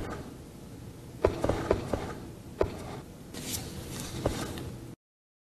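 A person moving about a quiet room: scattered light knocks, taps and rustling, with a burst of rustling about three and a half seconds in. The sound cuts off suddenly about five seconds in.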